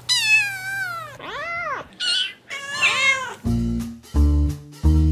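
A kitten meowing four times, short high calls that fall or arch in pitch. About three and a half seconds in, a tune with a steady plucked beat starts.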